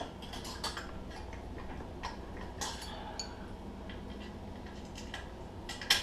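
Scattered light metallic clicks and taps of a bolt being worked into a basket mount whose holes are not quite lined up. A sharper double knock comes near the end.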